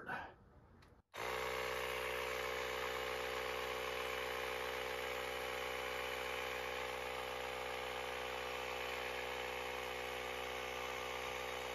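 Handheld electric tire inflator's small compressor starts about a second in and runs steadily, pumping air into an e-bike's fat rear tire toward a 27.5 psi setting.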